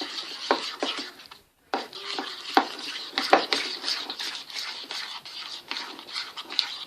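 A spoon stirring PVA glue slime in a bowl as borax activator is added and the mixture clumps into goo: steady scraping against the bowl with many sticky clicks. It stops briefly about a second and a half in.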